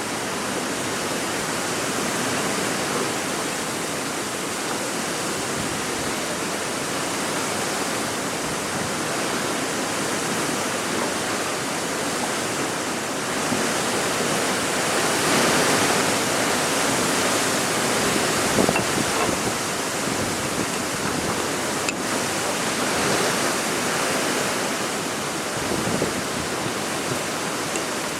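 Strong wind blowing: a steady loud rush that swells into a stronger gust about halfway through, then settles back.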